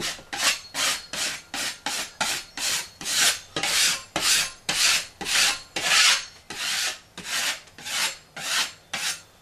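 Drywall knife scraping back and forth over a ceiling patch of quickset setting-type joint compound, about three short scraping strokes a second, knocking down the high edges of the nearly set mud.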